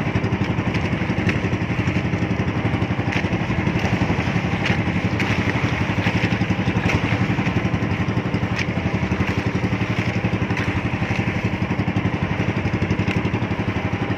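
Small engine of a motorized outrigger fishing boat running steadily at an even speed.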